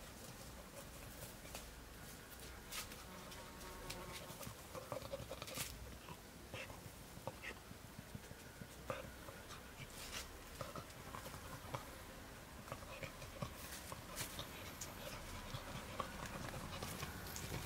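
A cocker spaniel puppy nosing and stepping about among leafy plants and dry grass: faint rustling with many scattered small clicks and ticks.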